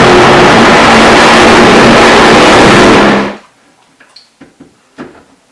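Electric blender running loud and steady, blending the peeled black-eyed bean batter, then switched off so it stops abruptly about three seconds in. A few faint light knocks follow.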